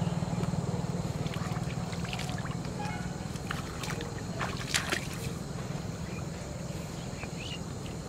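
Shallow canal water sloshing and trickling as a man wades and handles plastic-bottle fishing floats, with scattered small splashes and clicks, the sharpest about five seconds in. A low steady drone slowly fades under it.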